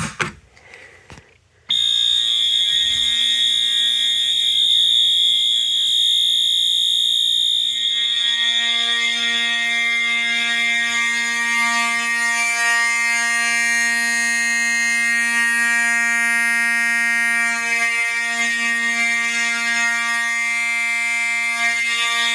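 A few clicks, then about two seconds in a fire alarm system's horns start sounding on continuous: one unbroken, loud alarm made of a piercing high tone over a buzzing lower horn tone, with no pulsing or coding.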